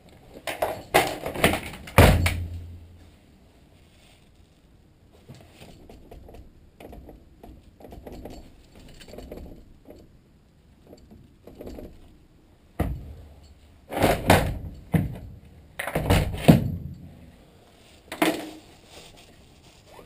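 Metal clunks and thuds as a VW T3 van's rear tailgate and engine-bay lid are opened and handled, with a heavy thud about two seconds in. Quieter small clicks follow, then several loud knocks from working in the engine bay near the end.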